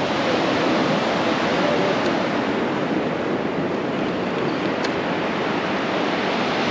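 Steady rush of small surf waves breaking and washing up a flat sand beach.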